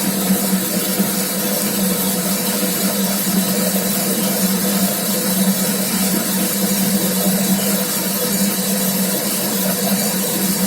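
Homemade metal lathe running steadily under power, turning a workpiece, with an even motor hum and a steady hiss.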